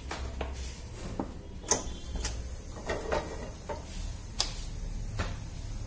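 Kitchen utensils and containers handled at the stove: about ten scattered light knocks and clicks over a steady low hum.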